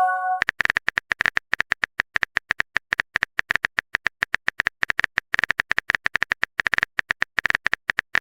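A rapid run of short, sharp electronic clicks, about eight a second, in uneven runs with brief pauses. It opens with the end of a short chime-like tone, which stops about half a second in.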